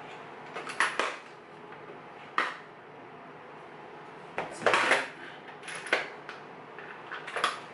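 Small hard objects, metal tools among them, clinking and clattering as they are handled and rummaged through. The clinks come in several short bunches, the loudest a little before halfway.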